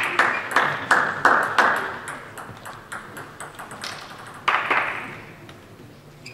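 A table tennis ball bouncing repeatedly in an even rhythm, about three sharp pings a second, as a player readies to serve. A little under four seconds in the rally starts: two sharp ball hits about half a second apart, ringing in the hall.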